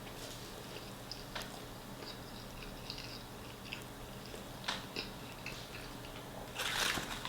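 Close-miked chewing of a chicken shawarma wrap: soft, wet mouth clicks and bites, with a louder rustling burst near the end.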